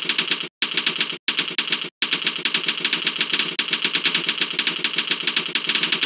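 Computer keyboard typed on quickly: a fast, even run of keystrokes, broken by three short pauses in the first two seconds.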